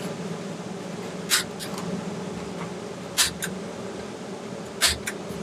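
Staple gun firing three times, about two seconds apart, driving staples into carpet; each shot is a sharp snap followed by a lighter click.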